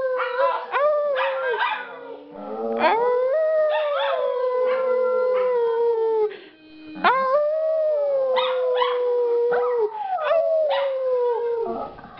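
Dogs howling together in long, drawn-out howls, several voices overlapping and gliding in pitch. The howling breaks off briefly about six seconds in, then starts up again.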